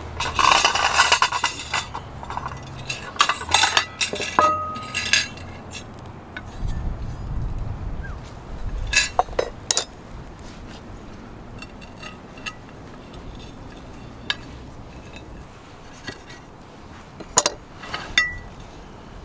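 Plates, forks and a metal roasting hook clinking and clattering on a wooden table, a close run of clatters in the first few seconds, then a few single clinks, one ringing on briefly near the end.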